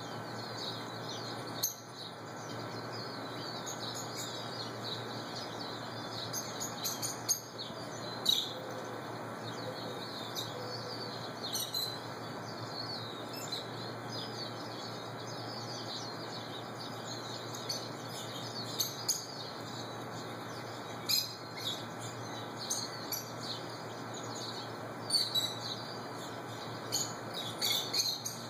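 A flock of rosy-faced lovebirds chattering: a continuous high twittering, with louder shrill calls breaking out every few seconds.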